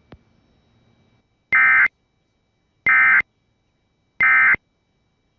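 Emergency Alert System end-of-message signal: three short, identical bursts of SAME digital data tones, evenly spaced about a second and a half apart, marking the end of the tornado warning alert.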